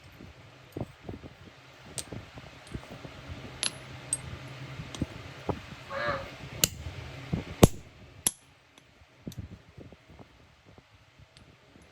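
Irregular metallic clinks and knocks of iron pieces and tools being handled, with a few sharp strikes a little past the middle. A low steady hum stops about three quarters of the way in, and a brief wavering squeal comes near the middle.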